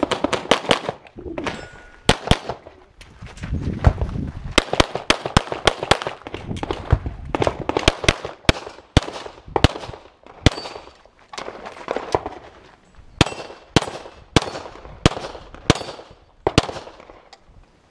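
Glock 34 9mm pistol fired rapidly: strings of sharp shots, some in quick runs a fraction of a second apart, others spaced about half a second apart, with short pauses between strings.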